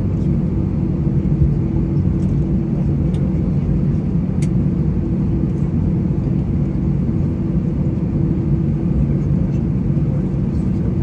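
Steady low cabin drone of an Airbus A320 with its CFM56-5B engines at idle while it taxis, heard from inside the cabin over the wing, with a few low tones held level throughout.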